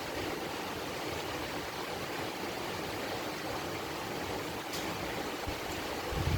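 Steady rushing noise with no distinct sounds standing out.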